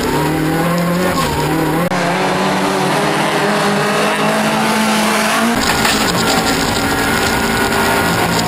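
Toyota Corolla rallycross car's engine running hard under load, its note climbing slowly and then holding, heard from inside the car. About two seconds in, the sound cuts to trackside for a few seconds, with less low rumble and more hiss, before switching back to the in-car sound.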